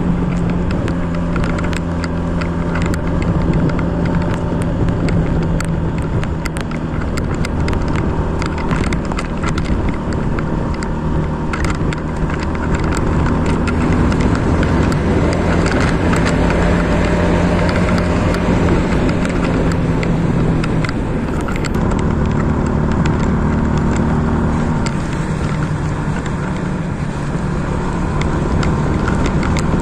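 Motorcycle engine running on the road with wind and road noise, its note shifting up and down in steps as speed changes.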